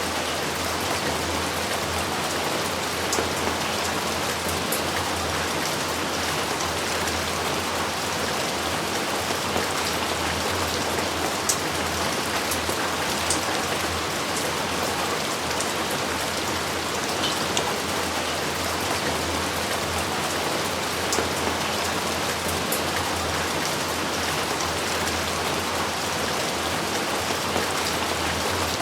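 Steady rain falling on surfaces, an even hiss with scattered individual drops ticking.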